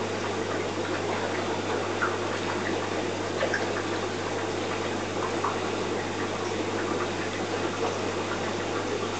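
Steady rushing and trickling of aquarium water with a constant low hum, from the tank's filter pump circulating the water.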